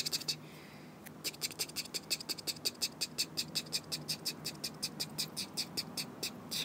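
Rotor of a small die-cast toy helicopter being turned round by hand, giving a quick, even run of light plastic clicks, about seven a second.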